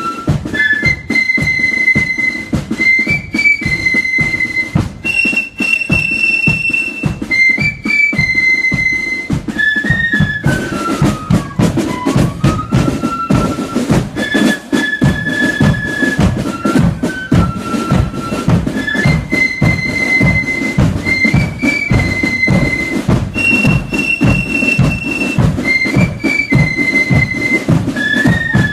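Marching flute band playing: flutes carry a high melody over steady, rapid drumming.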